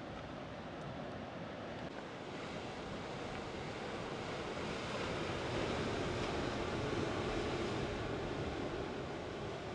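Sea surf breaking and washing over rocks at the shore, a steady rush that swells to a peak past the middle and then eases off, with some wind on the microphone.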